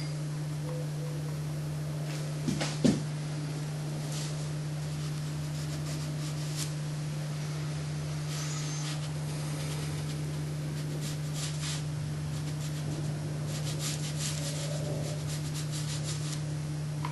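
Faint scratchy strokes of a dry brush dragged across watercolour paper, coming at intervals, over a steady low hum. Two short knocks come about two and a half to three seconds in.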